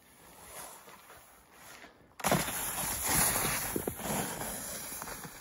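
Snowboard sliding over packed snow: faint rustle at first, then a sudden loud rushing scrape about two seconds in that slowly eases off.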